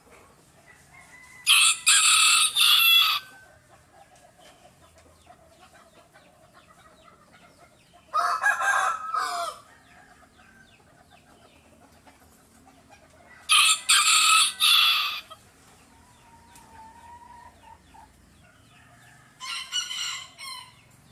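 Rooster crowing four times, a few seconds apart, with quieter clucking in between.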